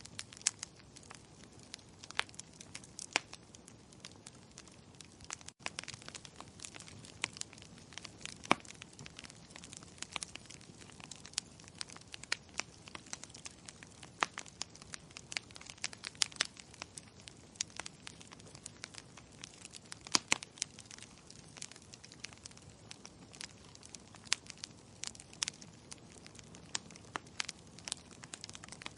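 Wood fire crackling in a fireplace: dense, irregular sharp pops and snaps over a soft low rumble of burning, with one momentary break in the sound about five and a half seconds in.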